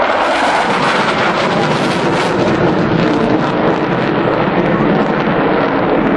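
Panavia Tornado twin-engine jet flying a high-speed pass, its engine noise loud and steady throughout.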